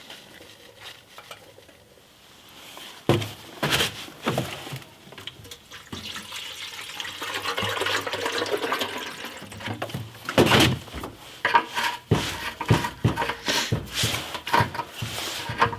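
Distilled water with baking soda poured into a steel motorcycle fuel tank and sloshed around: the neutralizing rinse after a vinegar de-rusting. The liquid noise swells for several seconds, with knocks and clunks of the tank being handled, more of them near the end.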